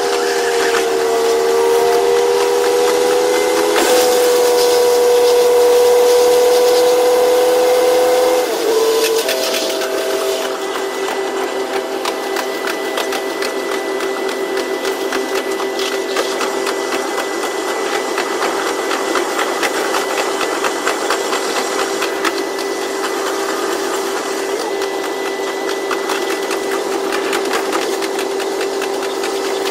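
JR West KiHa 122 series diesel railcar running, heard from the driving cab with the sound sped up to double speed: a steady whine from the engine and drivetrain. It shifts pitch about four and eight seconds in, then holds one pitch over a fast, even rattle.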